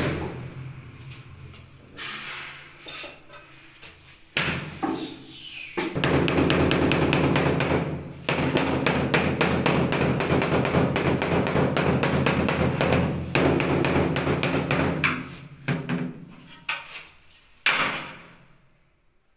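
Rubber mallet striking a large ceramic floor tile over and over to bed it down into fresh cement mortar: long runs of quick blows, several a second, with short pauses. A few separate knocks near the end.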